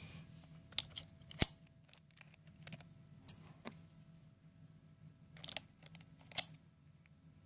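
Silver coins clicking against one another as they are handled and stacked: a handful of sharp, irregular clinks, the loudest about a second and a half in.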